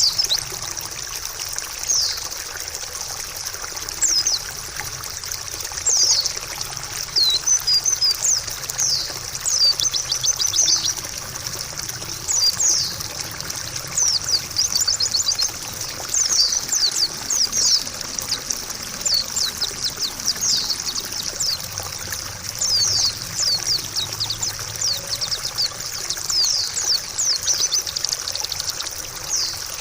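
White-eye (pleci) song, repeated bursts of rapid, high, thin chirps and trills every second or two, over a steady trickle of running water.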